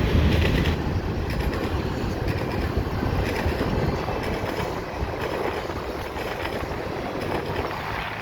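The last cars of a mixed freight train rolling past on the rails, the wheel rumble and rattle slowly fading as the end of the train goes by.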